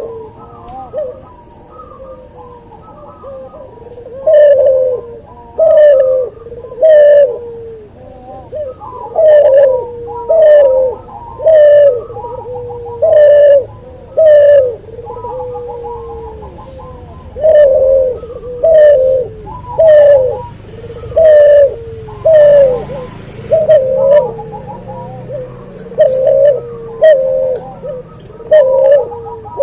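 A cuhu, a hybrid of an albino white puter dove and a puter pelung dove, cooing repeatedly. Each short coo falls in pitch, and the coos come in runs about a second apart with brief pauses between runs.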